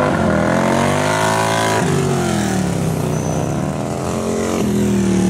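Big twin-cylinder bagger motorcycles racing, their engines going up and down in pitch as the riders open and close the throttle through corners. There are sudden shifts in the engine note about two seconds in and again near the end.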